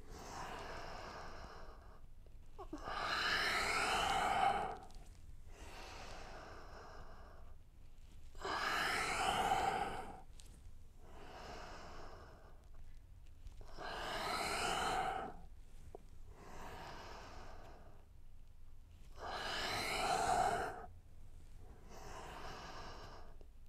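A man breathing deeply and slowly in paced exercise breathing, exhaling down and inhaling up through a squat. Four louder breaths about five seconds apart, each lasting about two seconds, alternate with softer breaths between.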